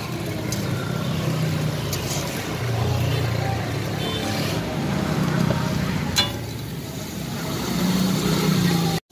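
Motor traffic hum from the street, a low engine drone that rises and falls in pitch, with faint voices and one sharp click about six seconds in.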